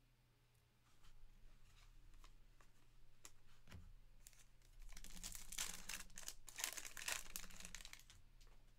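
The wrapper of a 2023 Panini Certified Football card pack being torn open and crinkled by hand. The rustling starts about a second in and is loudest from about the middle to near the end.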